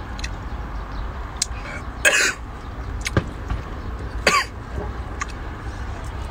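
A man coughing and clearing his throat, twice loudly about two and four seconds in, with a few small clicks between, as he eats raw octopus smothered in chili; the coughing comes from the fiery heat of the chili.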